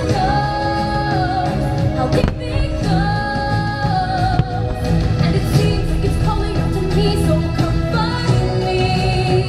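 Fireworks show soundtrack: a singer holding long notes over a steady musical backing.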